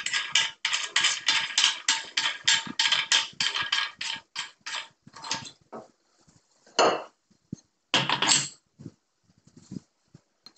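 Rapid plastic clicking and rasping, about five clicks a second, as the plastic holder ring is turned on the lamp socket's threads, then a couple of louder separate knocks as the ring and the glass shade are handled against the metal fixture arm.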